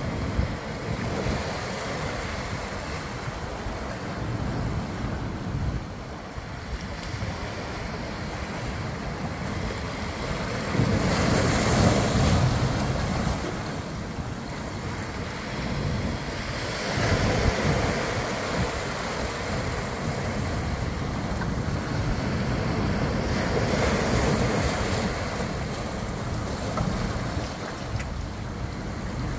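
Ocean surf: waves breaking on the shore in three louder swells about six seconds apart, over a steady wash, with wind buffeting the microphone.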